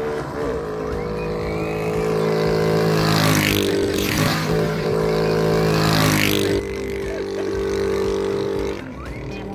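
A motorcycle passing close by. Its engine sound swells to a peak about three to six seconds in, then drops off as it rides away, over a steady engine hum.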